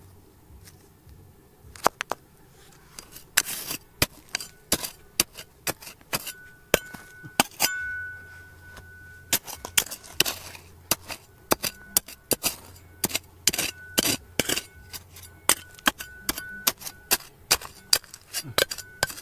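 Irregular sharp clinking strikes, a metal tool hitting rock, one to three a second, with a steady high tone sounding on and off between some strikes.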